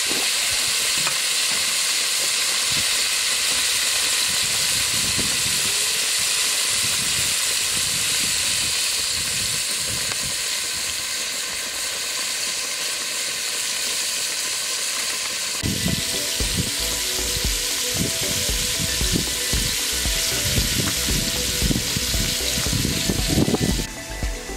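Chicken pieces deep-frying in hot oil in a pot, a steady sizzling hiss of bubbling oil. About two-thirds of the way in, irregular low thumps and crackles join the sizzle.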